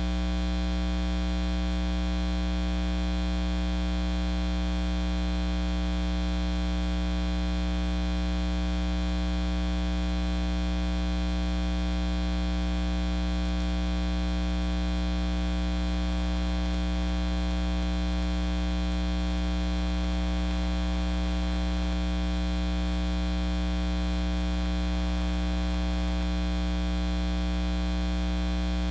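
Steady electrical mains hum and buzz, several fixed tones over a hiss: interference in the recording that drowns out everything else.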